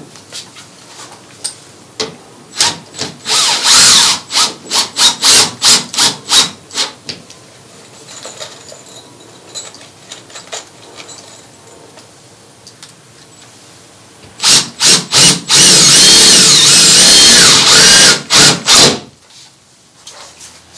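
Power drill run in a quick series of short trigger bursts, then after a pause a few more bursts and a steady run of two to three seconds, as a drapery holdback bracket is screwed to the wall.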